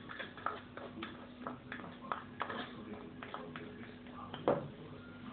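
Pestle knocking and grinding in a mortar, crushing garlic with chilli peppers and salt: a run of irregular light knocks, with one sharper knock about four and a half seconds in.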